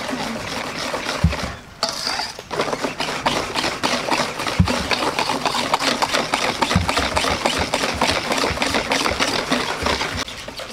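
Wire whisk beating flour into duck egg batter in a stainless steel bowl: rapid, steady clicking strokes of the wires against the metal, with a short pause about two seconds in and a few dull knocks.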